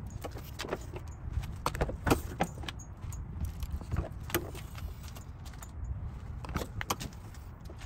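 A bunch of keys jangling in hand: irregular light metallic clicks and jingles, several a second at times, over a low steady rumble.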